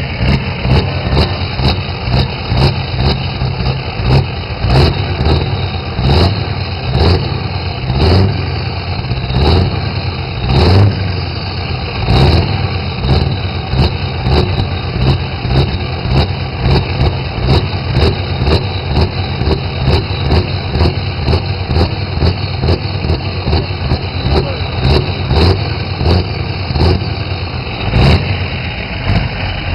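Scania truck's diesel engine idling, heard close to its exhaust outlet, with an uneven pulsing beat of about two swells a second and sharp cracks scattered through it.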